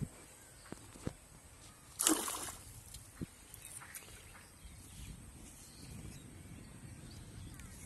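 A short splash about two seconds in, as a fishing rod's line and hook are pulled up out of shallow pond water, over faint outdoor background with a few small ticks.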